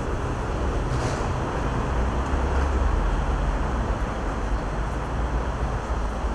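Steady background noise at a busy railway station entrance, with a deep rumble that swells in the middle.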